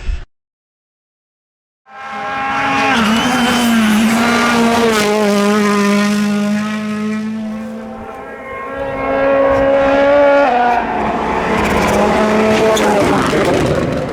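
Silence for about two seconds, then a 2017 World Rally Car's turbocharged 1.6-litre four-cylinder engine running hard at high revs through a stage, the revs easing off about eight seconds in and climbing again.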